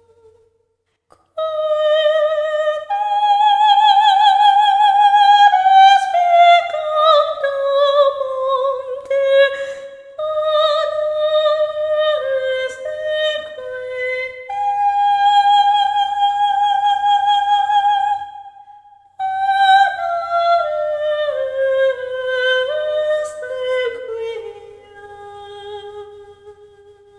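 A solo high voice singing a slow, sustained Latin requiem melody with vibrato, in long held and falling phrases. It comes in about a second in and pauses briefly for breath about two thirds through. A faint low hum sits underneath.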